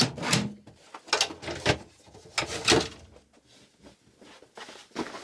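Bedroom tidying noises: a series of short knocks and rustles, a dresser drawer being opened and shut and a blanket shaken out over a bed.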